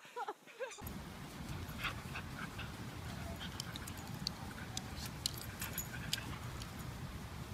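Two dogs play-fighting, giving scattered short yelps and whimpers over a steady low background hiss.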